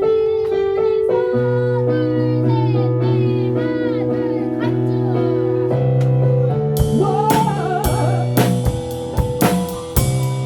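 Church praise band playing an instrumental passage: sustained keyboard chords over a steady bass line, with a drum kit coming in about seven seconds in with cymbal and drum hits.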